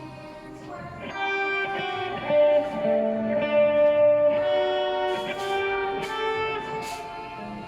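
Electric guitar, an Epiphone SG with humbuckers, played through a Boss GT-6 multi-effects processor: a line of single notes that ring and sustain, growing louder after about a second and easing off near the end.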